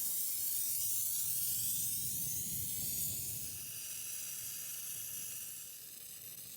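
Gas torch hissing steadily as it heats a copper pipe joint for soldering, growing fainter about halfway through.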